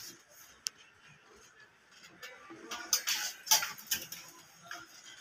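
Rustling and light clicking of a heavily beaded bridal dress as it is handled, with a sharp click about half a second in and a cluster of louder rustles and clicks a little past the middle.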